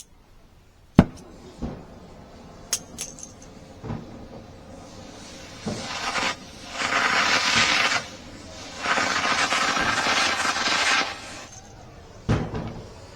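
Hammer blows on a steel exhaust header tube being beaten toward flat to clear the control arm bracket: sharp metal strikes, the loudest about a second in, some with a high metallic ring. In the second half there are two stretches of steady hissing of about two seconds each.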